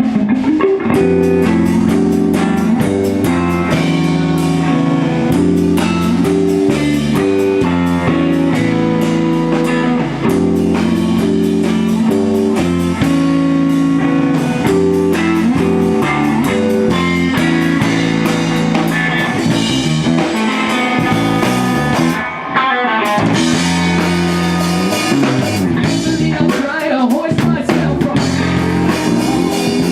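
Live rock band playing a jam of guitar, bass and drum kit, with a brief drop in the music about 22 seconds in.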